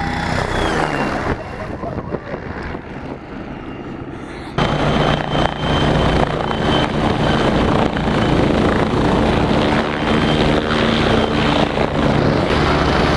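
Helicopter running as it comes in low and sets down, the main rotor and engine making a steady sound. About four and a half seconds in it suddenly gets much louder and closer.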